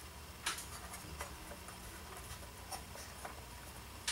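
Scattered light clicks and taps of hands handling a Quantum hard drive's metal top cover as it is put back in place, the sharpest about half a second in, over a faint steady low hum.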